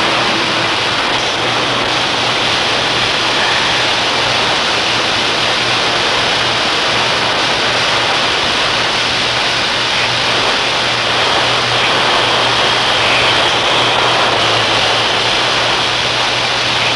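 High-pressure live steam rushing out of a ruptured underground street steam main, a loud steady hiss with a faint low hum beneath it.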